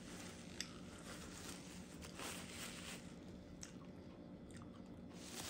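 Faint eating sounds: soft chewing with light rustling of a paper food wrapper and a couple of small clicks.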